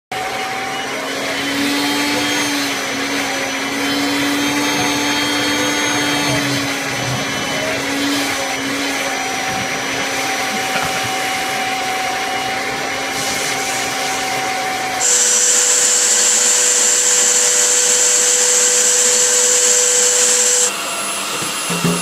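Vacuum cleaner motor running steadily with a humming whine while its hose nozzle is worked over a cat. About two-thirds of the way through the sound cuts abruptly to a louder vacuum with a strong high hiss, and it shifts again shortly before the end.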